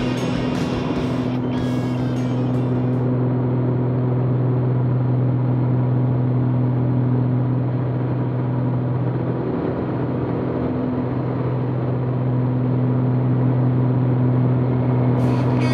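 Pitts S-2C aerobatic biplane's engine and propeller droning steadily as heard inside the cockpit, with a brief waver in pitch and level about ten seconds in. Rock music with guitar fades out in the first few seconds and comes back near the end.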